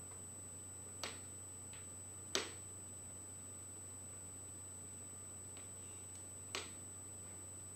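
Quiet room tone: a low steady hum and a thin high-pitched whine, broken by three sharp clicks, the loudest about two seconds in.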